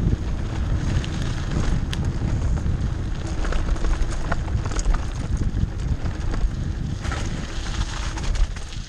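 Mountain bike descending a rough dirt trail: wind buffeting the microphone and tyres rumbling over dirt and loose stones, with scattered sharp clicks and rattles from the bike. It gets a little quieter near the end.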